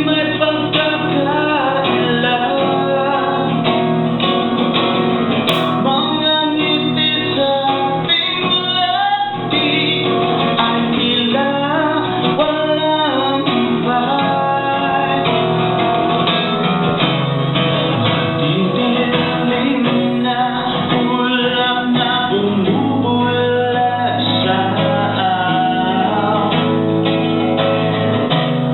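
Violin playing a slow song melody with gliding, sustained notes over a steady accompaniment.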